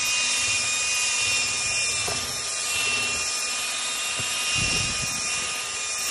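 Power drill running steadily with a paddle mixer, stirring a bucket of thick water-based sound-deadening coating: a constant motor whine with the paddle churning the liquid.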